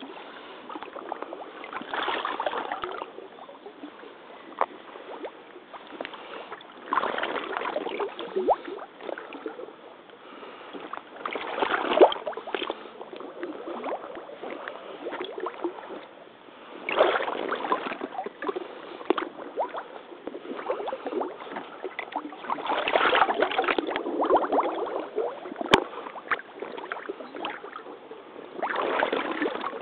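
Mitsuuma crotch-high rubber waders wading through shallow, muddy pond water: the water sloshes and splashes around the legs in irregular surges every few seconds as each step pushes through.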